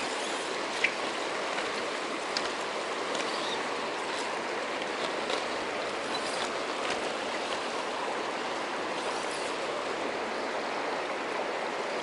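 Shallow mountain stream running steadily over a stony bed, with a couple of faint ticks early on.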